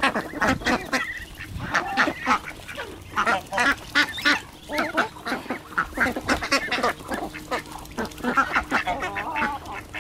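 A flock of runner ducks and geese calling, with many short quacks and honks overlapping without a break.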